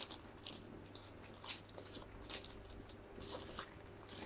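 Scissors snipping through a plastic mailer pouch: a string of short, faint, irregular crisp snips with light plastic crinkling.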